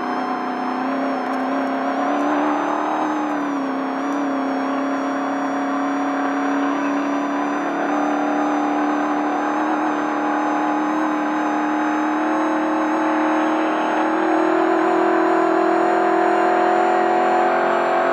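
Race truck's engine held at high revs under load, a steady drone that climbs slowly in pitch.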